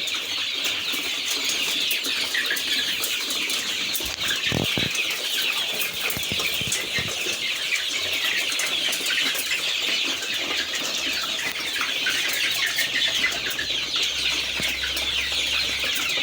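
A large flock of month-old Sasso chicks peeping together in a continuous, dense high-pitched chatter.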